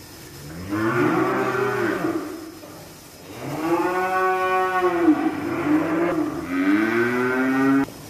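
Holstein dairy cows mooing: three long moos, each rising and then falling in pitch, the last overlapping a second lower call and cut off suddenly near the end.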